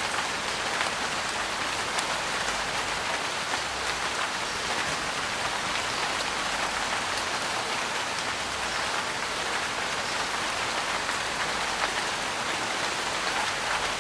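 Steady rain falling on a vehicle's roof, heard from inside: a dense, even patter of drops with sharper single drop hits scattered through it.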